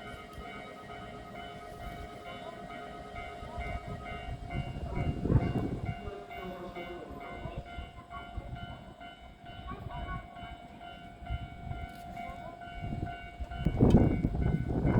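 Electric train at a station: a steady whine from its electrical equipment, with louder rumbling swells about five seconds in and again near the end. The whine stops shortly before the end.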